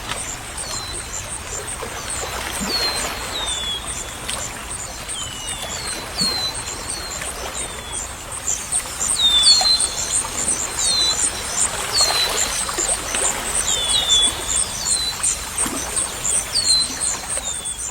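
Birds chirping, short falling whistles repeated about once a second, with a fast high pulsing trill underneath, over steady running water.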